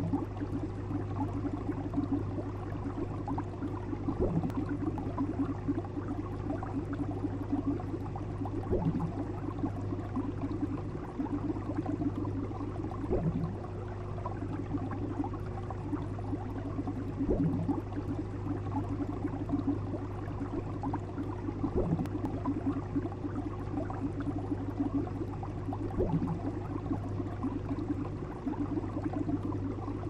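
Aquarium filter and aeration running: a steady low hum under continuous bubbling, trickling water, with a louder gurgle about every four seconds.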